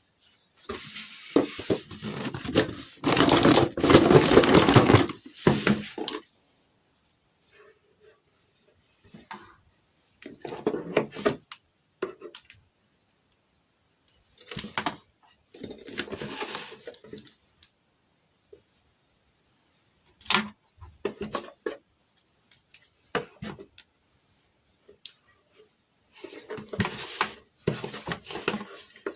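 Toy packaging being handled and opened: bursts of rustling, tearing and small clattering knocks, the longest and loudest in the first few seconds, with short quiet gaps between.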